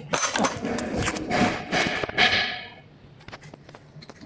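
A quick run of knocks and scraping from parts being handled and fitted by hand, dying away to a few light clicks after about three seconds.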